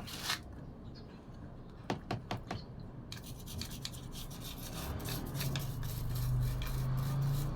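Scrubbing dirty camera parts clean in soapy water: a few light knocks at first, then rapid scratchy scrubbing strokes from about three seconds in, growing louder toward the end.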